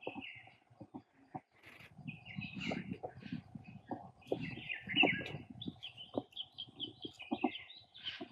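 Small birds chirping and calling, with a quick run of short, high notes near the end, over low rustling and a few soft knocks.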